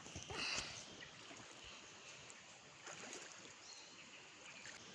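River water running over rocks, with a brief small splash about half a second in.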